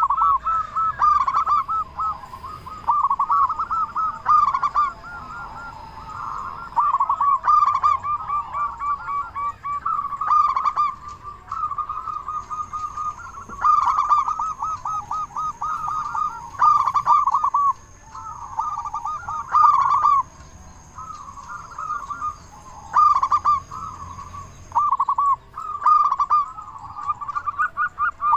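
Zebra dove (perkutut) cooing again and again, each phrase a quick rolling run of short notes, with phrases coming every second or two and sometimes overlapping.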